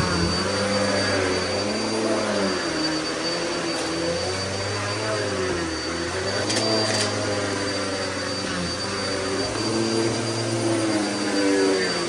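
Upright vacuum cleaner running on carpet, a steady motor whine with its pitch swaying up and down as the head is pushed back and forth. Two short clicks a little past halfway.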